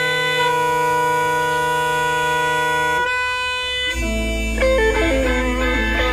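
Car horns of Porsche, Fiat and Mini cars sounding together as a car-horn orchestra, several held at once in a steady chord. About three seconds in the chord breaks off, and a second later a new passage of shifting notes starts over a deep low hum.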